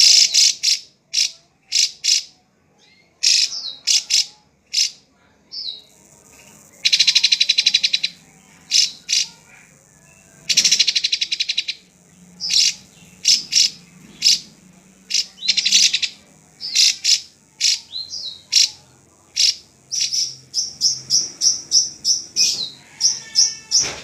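Caged drongo singing: a varied run of short, loud, high notes, with two fast buzzy trills of about a second each, one about a third of the way in and one just before halfway, and a quick string of notes near the end.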